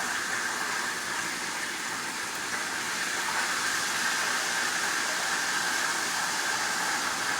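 Chicken frying in hot oil, a steady sizzle.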